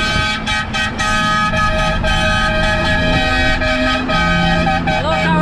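Truck air horns sounding in a long run of short toots at two or more pitches. The notes sag in pitch and die away near the end, over the truck's steady engine drone in the cab.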